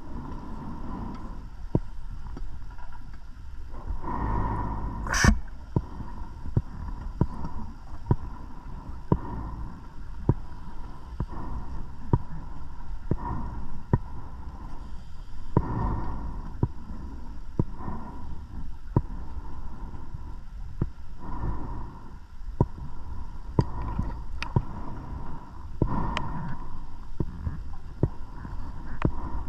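Underwater sound of a scuba diver breathing: three rushes of exhaled bubbles gurgle out about ten seconds apart, with many small sharp clicks in between and a faint steady tone underneath.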